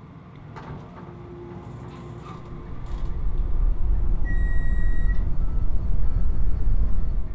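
Elevator car rumbling: a deep low rumble swells up about two and a half seconds in, holds, and cuts off abruptly at the end. A single high electronic beep sounds for about a second in the middle.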